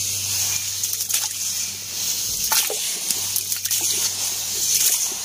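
Hand digging through damp sand in a plastic toy dump truck's bed: a gritty scraping rustle with small scattered clicks, over a low steady hum.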